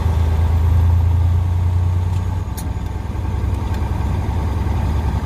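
Semi-truck diesel engine heard from inside the cab, running steadily as the truck pulls away at low speed. The engine note eases a little about halfway through, with a brief click around the same time.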